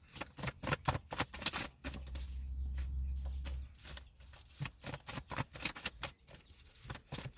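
A deck of reading cards being shuffled and handled: a rapid, irregular run of soft clicks and flicks, with a low rumble from about two seconds in lasting under two seconds.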